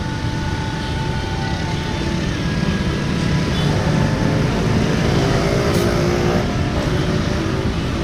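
Steady motor vehicle engine and road traffic noise, a continuous low rumble.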